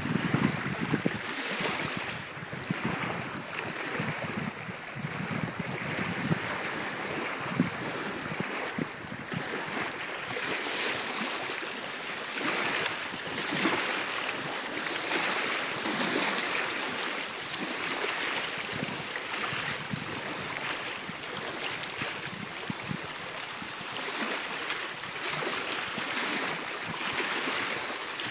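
Water splashing and lapping around a kayak, swelling and easing every couple of seconds, with wind buffeting the microphone, strongest in the first few seconds.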